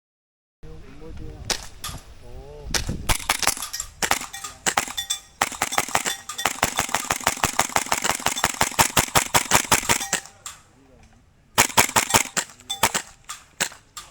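Airsoft rifles firing, scattered shots at first, then a long run of rapid full-auto fire, a short lull, and more rapid bursts near the end; a voice briefly calls out in between.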